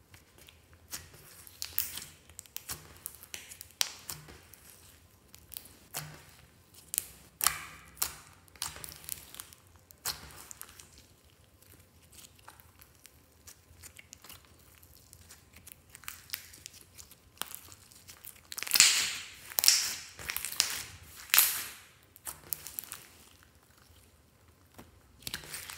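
Hands squeezing and stretching black-tinted clear slime, making irregular sticky crackles and pops. There are quieter stretches in between, and the loudest cluster of crackles comes about three-quarters of the way through.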